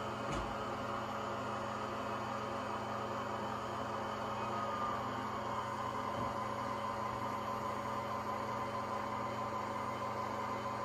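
RailKing O-gauge ES44AC model diesel locomotive running on the layout, a steady humming drone from its motors and onboard diesel engine sound, with rumble from the three-rail track.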